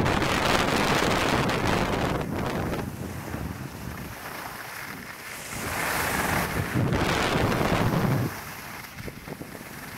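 Wind rushing over the microphone of a camera carried by a moving skier, mixed with the hiss of skis sliding on groomed snow. It is loud at first, eases off, swells again about six seconds in, then drops sharply a little after eight seconds.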